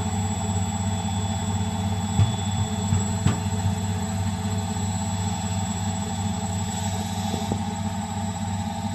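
Bosch front-loading washing machine in its spin cycle: the motor and drum run at a steady speed with a constant hum and high whine, and two light knocks come about two and three seconds in.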